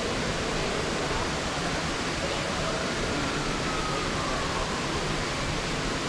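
Steady rushing of a waterfall, an even noise without a break.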